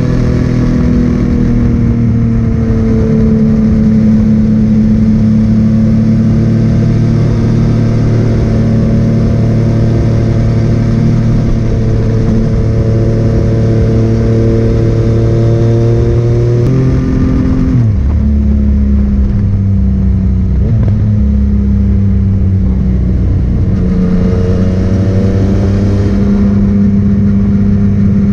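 Yamaha MT-09's three-cylinder engine through a Scorpion full exhaust system, running at steady cruising revs. About two-thirds of the way in the revs drop sharply, then build again near the end.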